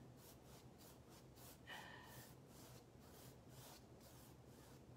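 Faint, repeated swishing strokes of a flat paintbrush dragged across stretched canvas, a few strokes each second, with a brief faint vocal sound about two seconds in.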